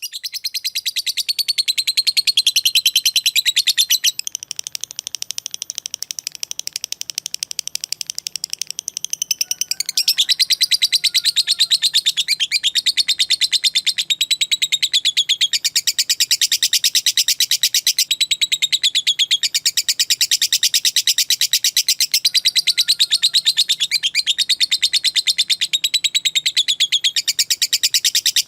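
Lovebird singing a long, unbroken ngekek: a rapid, high-pitched chattering trill of many quick notes a second. It is a little softer from about four to ten seconds in.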